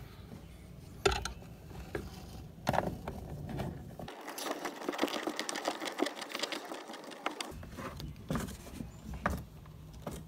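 T30 Torx screwdriver turning a screw into a plastic mounting bracket: a few separate clicks and knocks, then a rapid run of fine ticking for about three seconds in the middle.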